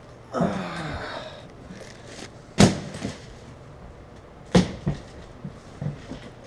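Several sharp knocks and thuds of hard objects being handled and set down, the loudest about two and a half seconds in and two close together past four and a half seconds. A brief, falling squeaky sound comes about half a second in.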